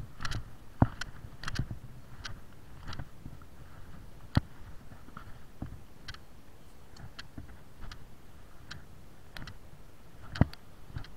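Footsteps on dry, stony dirt, roughly one or two a second, with a few sharper, louder knocks among them.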